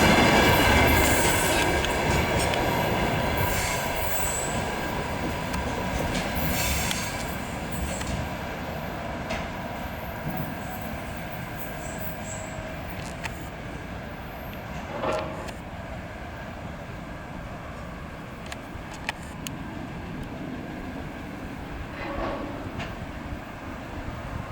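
Electric locomotive-hauled repair train rolling through on the rails, wheels squealing, growing steadily fainter as it moves away, with a few sharp clicks from the track.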